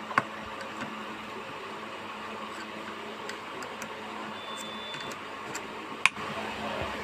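Steady low background hum and room noise, with a few light clicks near the start and one sharper click about six seconds in.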